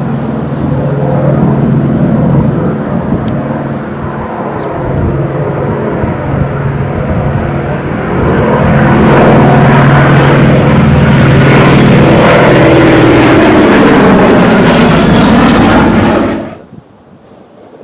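A 1943 Howard's radial engine drones steadily as the plane flies toward and over the listener, growing louder about halfway through. Its pitch drops as it passes, and then the sound cuts off abruptly near the end.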